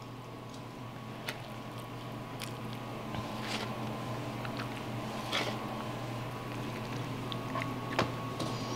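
Soft, scattered squishing and light taps of hands pressing pieces of roasted butternut squash filling onto a yuba-wrapped mushroom on a wooden cutting board, over a steady hum.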